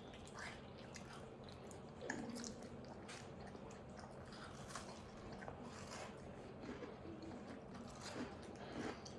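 Faint chewing and biting of a giant cookie, with scattered small mouth and bite sounds.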